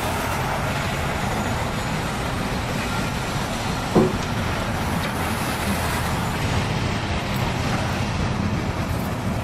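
Steady rumble of heavy vehicle engines and street traffic, with one short knock about four seconds in.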